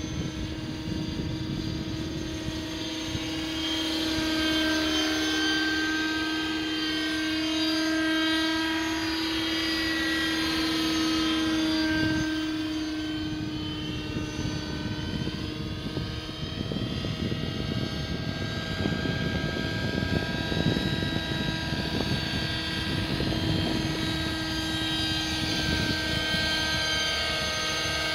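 Align 600 nitro radio-controlled helicopter in flight: its glow-fuel engine and rotors run at a steady high pitch, and the tone slides up and down twice as the model moves about.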